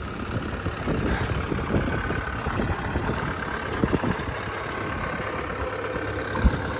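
Cat 248B skid steer's diesel engine idling steadily, with a single short knock near the end.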